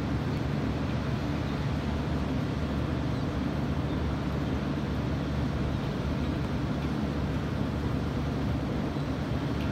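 Beach ambience: a steady low rumble and hiss of ocean surf and wind, with no distinct events.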